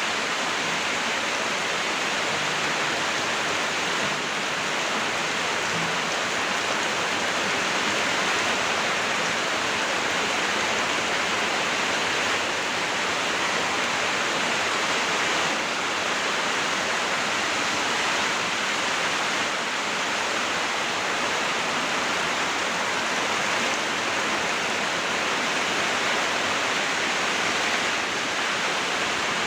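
Steady rush of storm water, an even unbroken hiss throughout.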